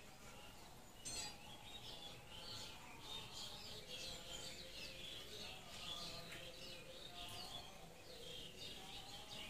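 Small birds chirping busily in the background, a steady stream of short high chirps. A single sharp click about a second in.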